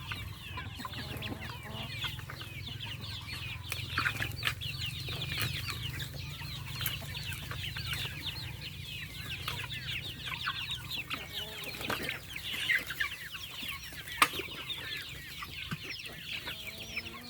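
A flock of free-range chickens clucking and chirping without a break, many calls overlapping. A few sharp knocks sound over them, around a third of the way in and twice more near the end.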